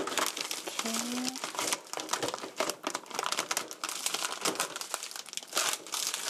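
Plastic film on a meat tray crinkling and crackling irregularly as it is slit with a knife and peeled off by a hand in a disposable plastic glove.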